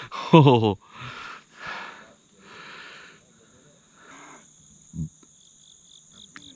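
Insects keep up a steady high drone, and a second, pulsing insect call comes in about five seconds in. A man's voice sounds briefly at the start, followed by breathy, whispery sounds and a single low thump near the end.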